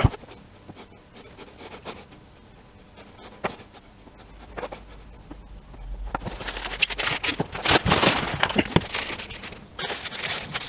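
Paintbrush scrubbing paint onto the exposed steel of a rubber-tyred tank return roller: a dry scratching that turns dense and louder from about six seconds in. There is a sharp knock right at the start.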